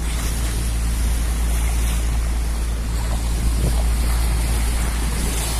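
Motorboat under way: a steady rush of water past the hull and wind buffeting the microphone, over a low engine drone.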